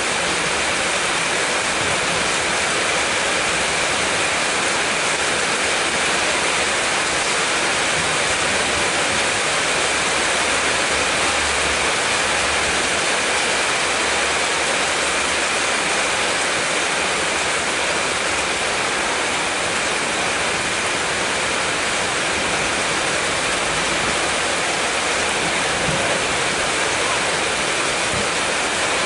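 Heavy rain pouring down steadily onto a waterlogged artificial-turf pitch, a dense, even hiss that does not let up.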